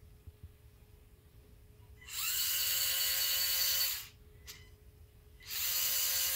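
LEGO Powered Up electric motor whining as it spins up, running for about two seconds and cutting out, then starting again about a second and a half later. The motor stopping by itself while the app's throttle slider is held is the fault being shown.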